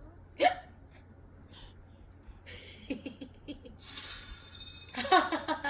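A young baby hiccuping: one sharp hiccup about half a second in, soft short breathy baby sounds around the middle, and a cluster of louder short bursts near the end.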